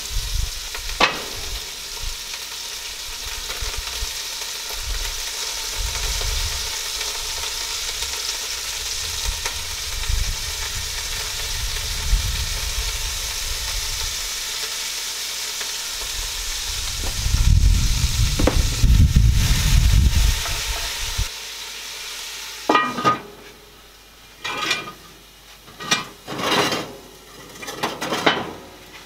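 Chunks of barramundi sizzling in oil in a cast-iron camp oven on a wood stove: a steady frying hiss. Partway through there is a few-second low rumble, and near the end the sizzling stops and gives way to a run of clinks and knocks at the pot.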